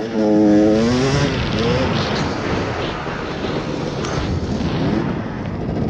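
Dirt bike engine running under throttle while riding over dirt, its note dropping in the first second and rising again twice as the throttle changes.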